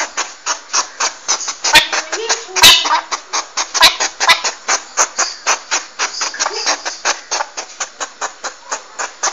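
Porcupine making a rapid, continuous train of short clicking, chattering sounds, about six a second. A few louder, sharper calls come in the first half, one with a brief squeak.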